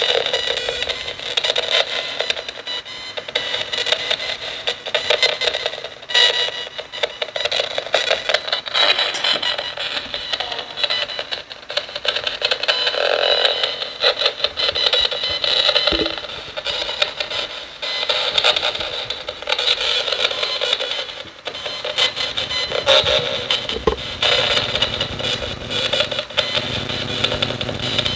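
Nanocom Coffin Edition spirit radio sweeping through radio stations, giving rapid choppy bursts of static and clipped broadcast fragments. It is very staticky throughout.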